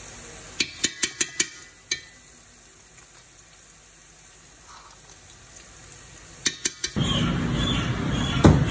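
A metal spoon clanking against a steel cooking pot several times in quick succession while garlic paste is stirred into frying onions, with a faint sizzle between the strikes. Three more clanks come near the end, followed by an abrupt, loud rushing sound.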